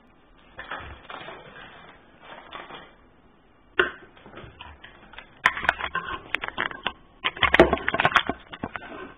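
Packaging being handled and opened: crinkling, crackling rustle with clicks and knocks in irregular bursts. The loudest bursts come about halfway through and again near the end.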